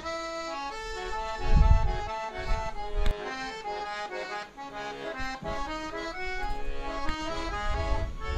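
Accordion music playing a quick melody of short notes, with a low rumble about a second and a half in.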